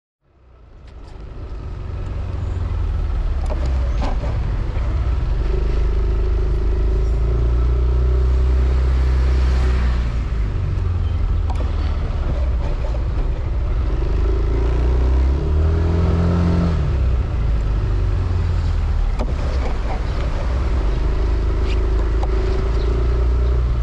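Motorbike engine running while riding along a road, over steady road noise. The sound fades in over the first couple of seconds, and the engine note rises briefly about two-thirds of the way in as it speeds up.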